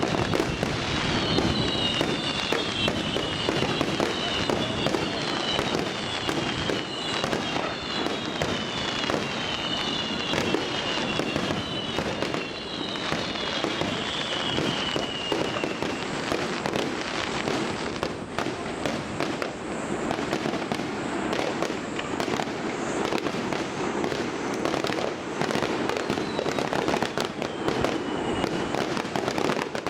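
Fireworks display: a dense, continuous barrage of bursts and crackling, with a run of falling whistles through the first half and another whistle near the end.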